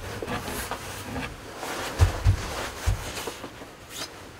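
Faint rustling with three dull, deep thumps about two to three seconds in: handling and movement noise close to the microphone.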